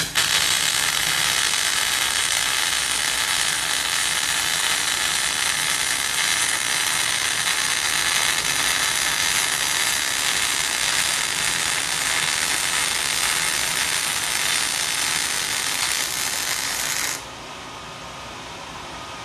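MIG welding arc crackling steadily as the wire feeds into a fillet weld. After about seventeen seconds it cuts off abruptly, leaving a quieter steady background hum.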